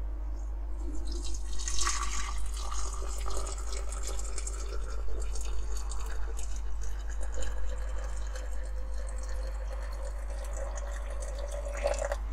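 Freshly boiled water poured from a kettle into a tall glass jar, splashing steadily as the jar fills; the pour starts about a second in.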